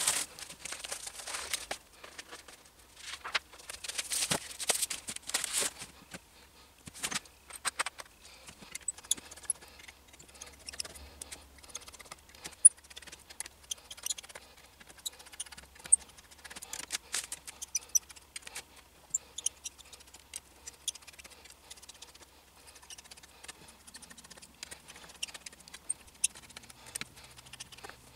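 Tiny screws being undone by hand with a precision screwdriver from the metal frame that holds a resin printer's FEP sheet: scattered light metallic clicks and ticks as the driver turns and the screws are handled. Several seconds of rustling handling noise come first.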